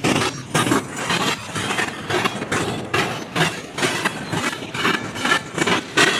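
Double-stack container train of well cars passing close by: steel wheels rumbling on the rails with rhythmic clacks, about two a second.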